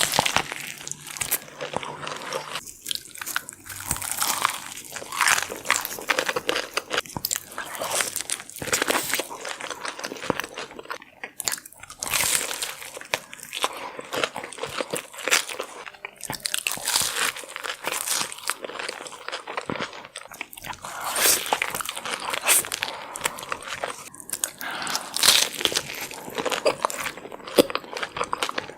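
Close-miked eating of a king crab seafood boil in sauce: wet chewing, smacking and crunchy bites, one after another.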